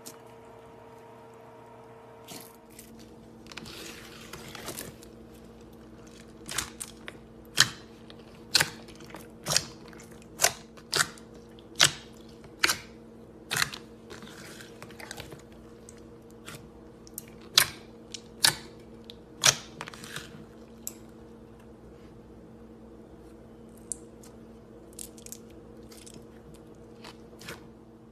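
Slime being squeezed and pressed by hand: a soft squish, then a run of sharp pops and clicks about once a second, thinning out near the end, over a steady low hum.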